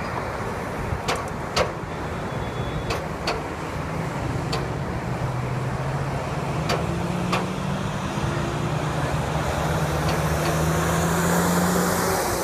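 Highway traffic passing close below in a steady rush of tyres and engines, with a few sharp clicks early on. A low engine drone builds from about halfway and is loudest near the end as a heavy truck passes close.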